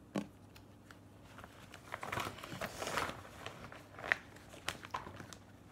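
Paper gift bag crinkling and rustling as a hand rummages through the items inside it, with a few sharp clicks.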